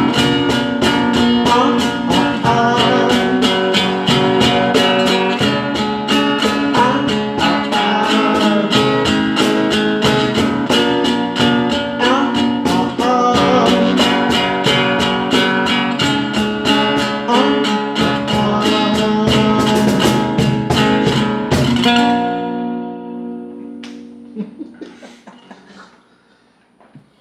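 Strummed acoustic guitar music with a steady rhythm, ending on a chord that rings out and fades away over the last few seconds.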